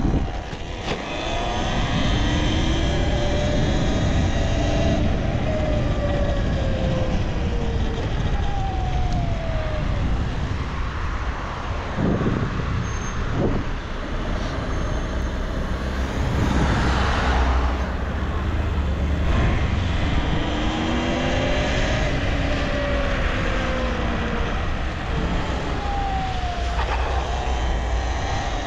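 Motor of a Talaria Sting R electric dirt bike whining as it rides. The pitch rises and falls twice as the bike speeds up and slows, over heavy wind rumble on the microphone.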